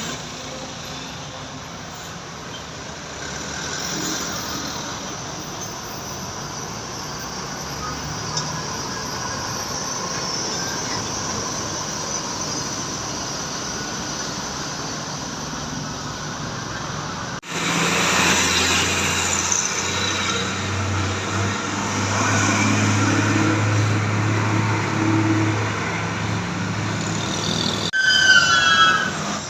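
Roadside traffic noise of vehicles passing on the road. About 17 seconds in it turns suddenly louder, with the deep steady hum of a large bus engine running close by. Near the end a few short pitched notes sound.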